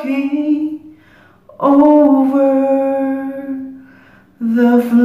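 A man's voice singing a slow melody without accompaniment, in long held notes. One phrase fades out within the first second, a long note comes in about a second and a half in and fades, and another phrase starts near the end, with quiet pauses between them.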